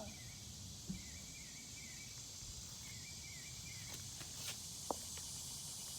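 Quiet outdoor ambience: a steady high-pitched hiss of insects with a few faint repeated chirps, broken by light clicks and one sharper click about five seconds in.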